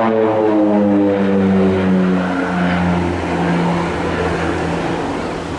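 OV-10 Bronco's twin turboprop engines and propellers droning as the aircraft flies past, the pitch falling steadily as it goes by. It then blurs into a rougher rumble that eases slightly near the end.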